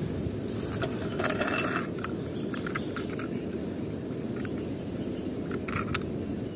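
A steady low outdoor rumble with scattered light clicks and knocks as small die-cast toy cars are picked up and handled.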